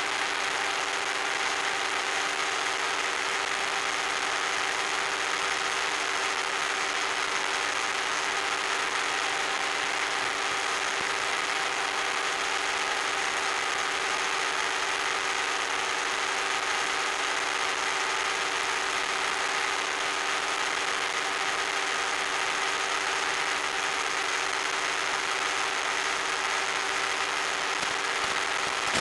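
RC plane's electric motor and propeller running at a steady speed of about 10,400 rpm: a constant hum over an even hiss.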